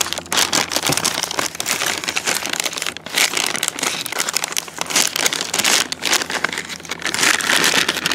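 Plastic flameless ration heater bag and MRE food pouches crinkling and rustling as a curled pouch is pushed down into the bag beside another.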